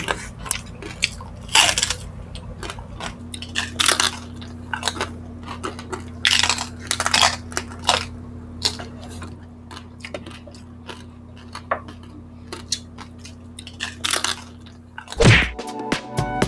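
Close-miked eating: chewing with sharp crunches every second or so, over a low steady hum. Electronic music with a steady beat comes in near the end.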